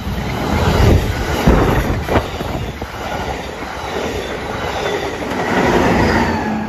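Amtrak Pacific Surfliner bilevel passenger train passing close by, its wheels rumbling and clattering on the rails, with a few sharp clacks in the first couple of seconds.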